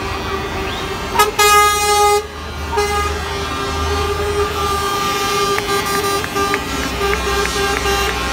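Lorries in a truck convoy passing slowly with diesel engines rumbling and horns sounding almost continuously; a loud, bright air-horn blast comes about a second in and lasts about a second.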